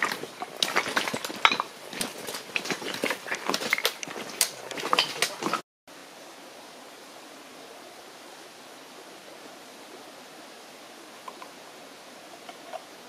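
Footsteps crunching on a loose stony path, with trekking-pole tips clicking on the rocks in a quick irregular run of clicks and scrapes. This cuts off abruptly about six seconds in, giving way to a steady faint hiss of outdoor background with a couple of soft ticks near the end.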